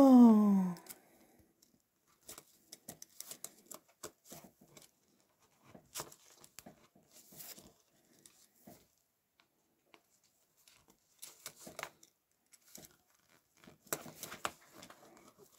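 Scattered light clicks and rustles of plastic Technic-style clip-brick beams and pins being handled and pressed together, coming in short clusters. A falling voice sound fills the first second.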